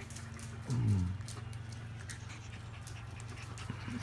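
Five-week-old puppies playing and scuffling, with one short, low cry falling in pitch about a second in and light scattered clicks over a steady low hum.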